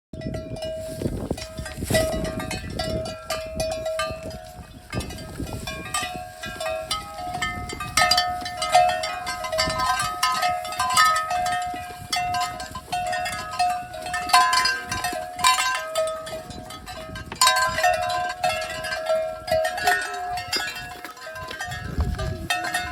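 Cowbells clanking irregularly as cattle move about, over a steady tone.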